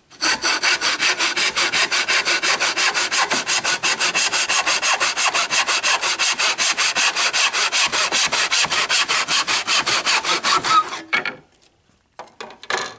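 Backsaw cutting through a timber board held in a wooden saw box: rapid, even back-and-forth strokes that stop about eleven seconds in, followed by a few light knocks.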